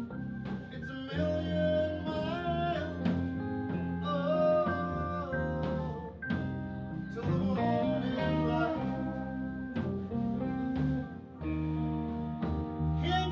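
Blues band playing live, with a lead guitar bending and sustaining notes over the band's lower accompaniment.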